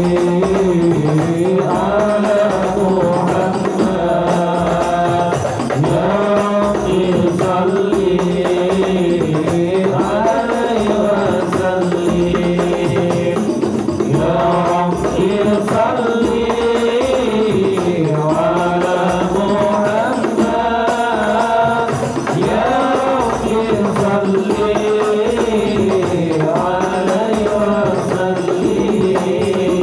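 Voices chanting sholawat, an Arabic devotional song in praise of the Prophet, in one continuous melodic line, with rebana frame drums beaten in rhythm underneath.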